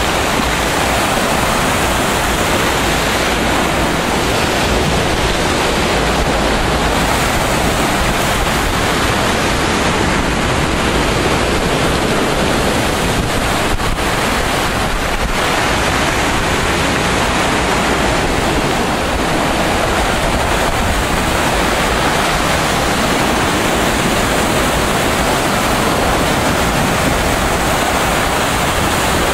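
Loud, steady rushing noise of wind and sea surf, with wind buffeting the microphone.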